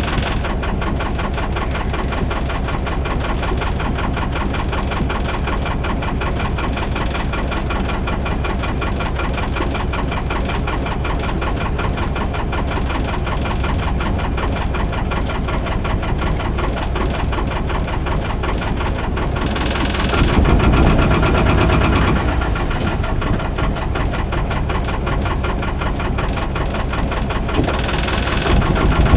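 Albin 2D marine engine running steadily in an old wooden launch, with a fast, even firing beat. It gets louder for a couple of seconds about twenty seconds in, and again near the end.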